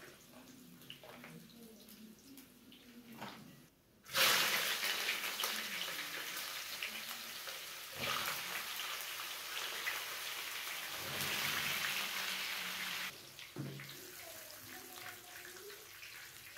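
Vegetables sizzling in hot oil in a frying pan. The hiss starts suddenly about four seconds in, grows louder around eight seconds as more pieces are dropped into the pan, and cuts off abruptly about three seconds before the end.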